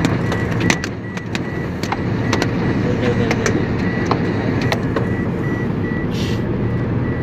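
A car driving with a steady road and engine rumble. Irregular sharp ticks are heard as locusts from a swarm strike the car, most of them in the first few seconds and fewer after. A thin, high pulsing tone runs underneath.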